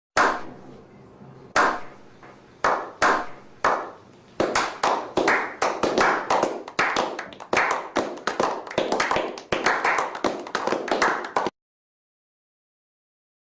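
Hand clapping: a few spaced-out claps at first, then faster, steadier clapping from about four seconds in, cutting off abruptly near the end.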